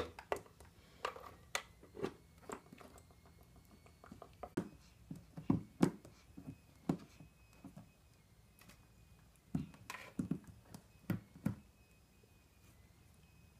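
Irregular light taps, knocks and clatters as a cat paws and noses at a plastic object on a wooden desk, coming in short flurries and thinning out near the end.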